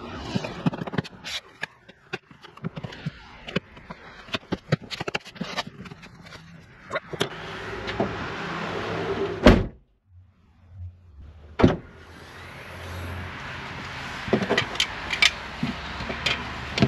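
Plastic push-pin clips snapping and the liftgate's plastic trim panel knocking as it is pressed into place by hand, a quick run of clicks and taps. Two loud thumps come about nine and a half and eleven and a half seconds in, with a few more clicks near the end.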